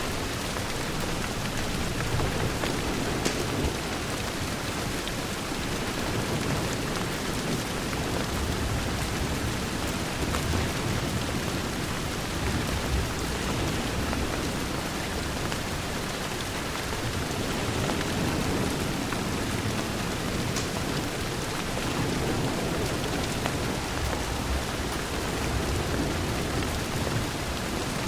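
Steady rain pattering against a window, with a low rumble that swells and fades in the background and a couple of faint clicks.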